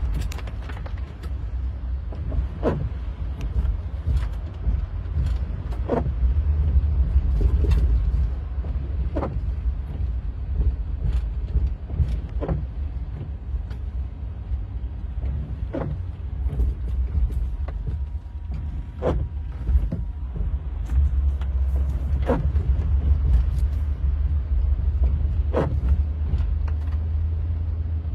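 Steady low rumble, like a vehicle running, with a sharp click or knock repeating about every three seconds.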